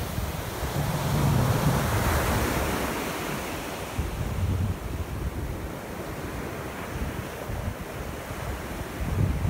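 Ocean surf breaking and its foam washing up the shore. The rush swells about a second or two in and then eases, with wind buffeting the microphone in low rumbles.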